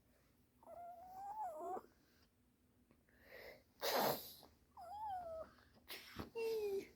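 Faint, high, wavering whimpering cries in a child's voice, standing in for a frightened puppet, with a sharp breathy sob about four seconds in.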